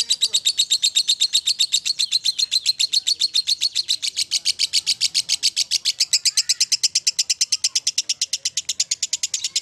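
Fischer's lovebird singing a long, unbroken chatter of sharp high chirps, about ten a second, with no pause: the continuous "ngekek" song prized by lovebird keepers.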